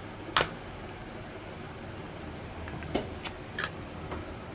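One sharp knock about half a second in, then a quick cluster of four lighter clicks or taps about three seconds in, over a steady background hiss.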